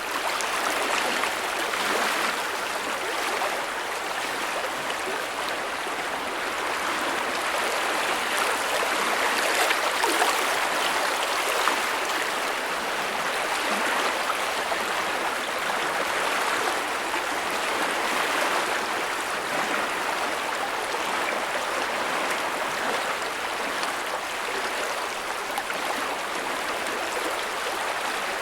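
A big creek running: a steady rush of flowing water with small splashes and gurgles.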